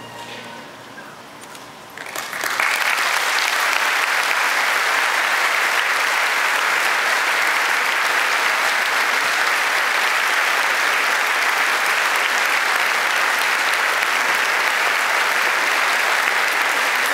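The last note of the music dies away, and about two seconds in a large church congregation starts applauding, a loud, steady applause that holds without letting up.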